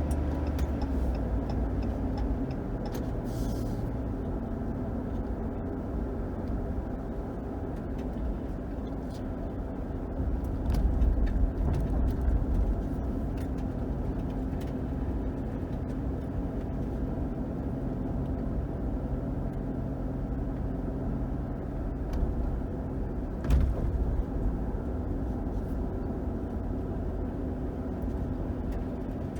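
A 2021 Ram 1500's 5.7-litre HEMI V8 runs steadily as the pickup drives along, with low tyre and road rumble under it. The rumble grows louder briefly about ten seconds in, and there is a single sharp knock about two thirds of the way through.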